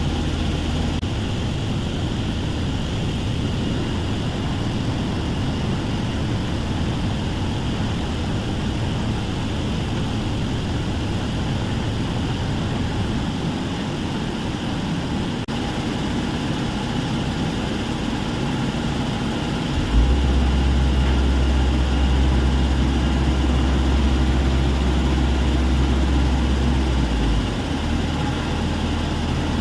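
Heavy diesel machinery at a stone crusher plant running steadily: excavator and crusher engines. A deep low rumble swells louder about two-thirds of the way through and drops back shortly before the end.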